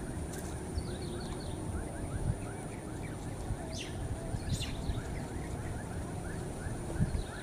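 Wetland ambience: a dense chorus of short, rapid chirps from small animals, with a couple of brighter calls near the middle, over a steady thin high tone and a low rumble.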